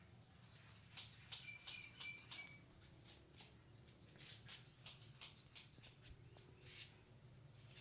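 Faint, quick scratchy swishes of fingers rubbing through hair and over the scalp during a head massage, coming in irregular runs and densest a second or two in.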